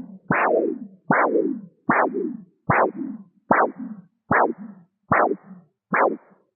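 Doppler ultrasound blood-flow monitor giving the audible arterial pulse: a swooshing beat about every 0.8 seconds, eight beats, each a sharp sweep falling in pitch followed by a weaker second swoosh. The second swoosh of each beat grows shorter and fainter toward the end.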